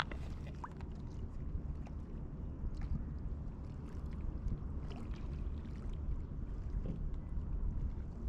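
Steady low rumble of wind on the microphone at the water's edge, with a few faint light ticks.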